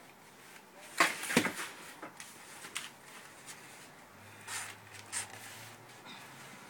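Knocks and rustling from large stretched-canvas paintings being handled and swapped: two sharp knocks about a second in, then softer taps and rustles.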